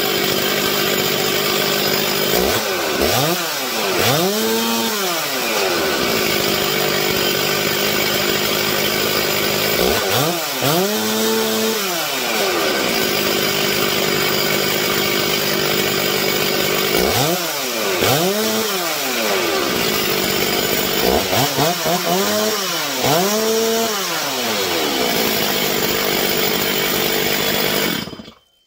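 Stihl MS 361 two-stroke chainsaw engine idling on a test run after a carburetor rebuild, blipped up to high revs and back down several times. It cuts off just before the end.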